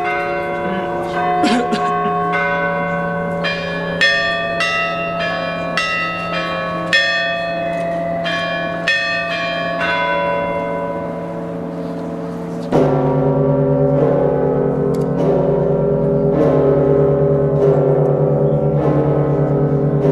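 Church bells ringing: small bells struck in quick descending runs of notes, about two strikes a second, over a steady lower hum. About 13 seconds in, a louder, fuller ringing of lower bells takes over.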